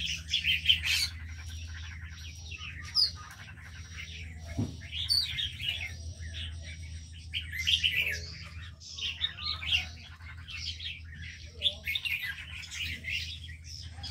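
Many small aviary birds chirping and twittering at once, a dense overlapping chorus of short high calls and trills, over a steady low hum.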